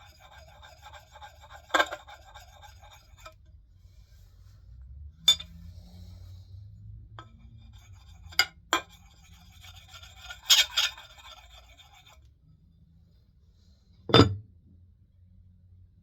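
Quick, short strokes of a fine hone rubbed along the edge of an axe bit, working a micro bevel to push the burr back and forth. The rubbing comes in two stretches, at the start and again past the middle, broken by several sharp metallic clinks; the loudest clink is near the end.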